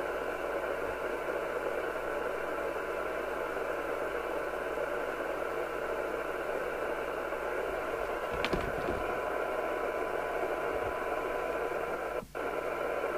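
Steady hiss of FM receiver noise from a Major 3000 CB radio's speaker, with a faint steady test tone under it from a signal generator feeding the receiver. The sound briefly drops out about twelve seconds in.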